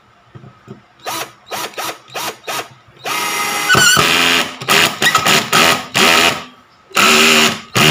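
Black & Decker GC1800 18 V cordless drill/driver driving a 1½-inch black gypsum screw into wood. It runs in a few short trigger bursts, then in longer runs. Its torque clutch ratchets as the screw head reaches the wood surface.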